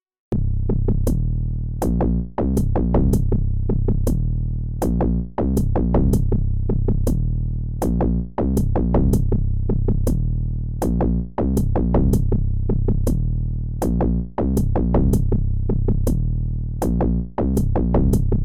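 Electronic background music with a drum-machine beat and synth bass, starting abruptly just after the beginning.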